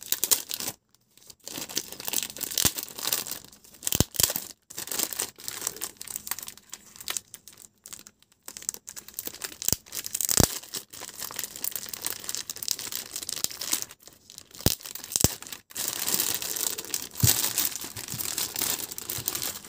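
Clear plastic wrapping crinkling and tearing as it is pulled off a circuit board, with irregular crackles and sharp clicks.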